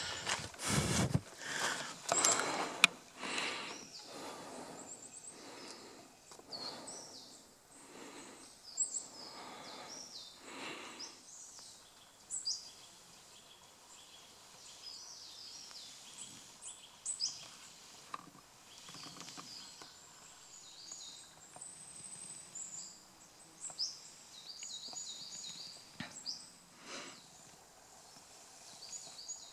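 Footsteps through dry leaves and forest undergrowth, about one or two steps a second, for roughly the first ten seconds. Then quiet woodland with small birds calling in short, high chirps.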